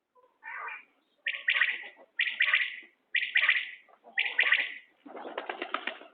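Common quail calling: four loud, quick high-pitched calls about a second apart, each a pair of notes, after a faint call near the start. A rougher, buzzy burst follows near the end.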